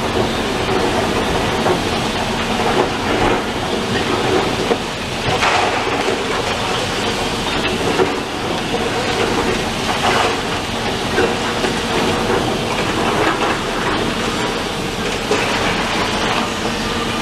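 Demolition excavator at work: its engine running steadily under a continual clatter and crunch of falling brick and rubble.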